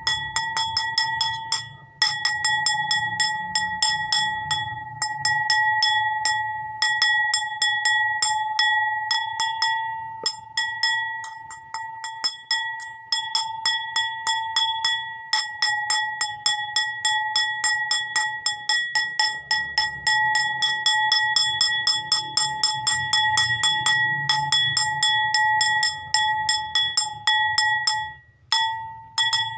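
A bowl struck rapidly and repeatedly, several strikes a second, so that it rings on one steady tone with bright overtones; the striking breaks off briefly near the end.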